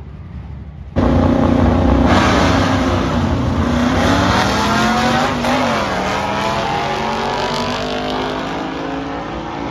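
Vintage muscle-car drag racer's engine at full throttle down the drag strip: it starts abruptly about a second in, the pitch climbs, drops once near the middle at a gear change, climbs again, and the sound slowly fades as the car pulls away.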